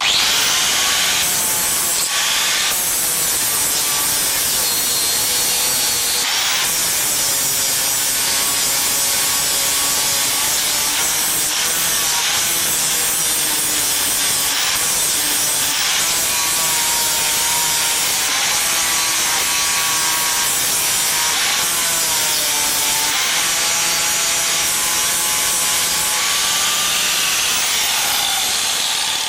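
Angle grinder with an abrasive disc sanding the surface of a welded stainless steel sheet-metal heart: a loud, steady grinding hiss, the motor's whine wavering in pitch as it is pressed onto the steel.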